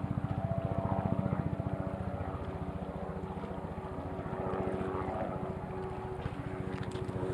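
Helicopter flying overhead: the rapid, even chop of its rotor blades with a steady engine hum above it.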